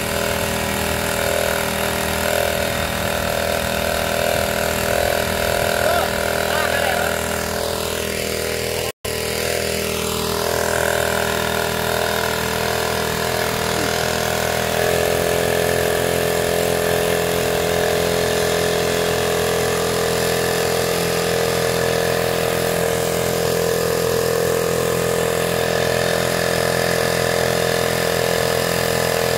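Small outboard boat motor running with its propeller under creek water, rigged to drive a water pump. The sound breaks for an instant about nine seconds in. From about halfway it picks up and runs louder and higher.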